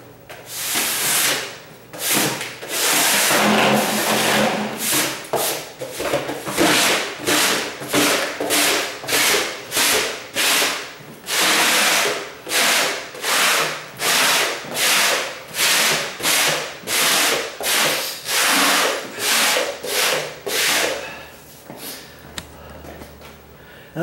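Broom sweeping dust and debris across a hard floor in short, regular swishing strokes, about one and a half a second, which stop near the end.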